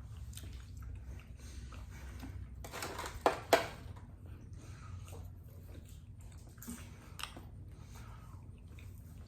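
Close-up chewing and biting of McDonald's burgers and fries: soft, wet mouth sounds with scattered small clicks. Two sharp, louder clicks come close together about three and a half seconds in.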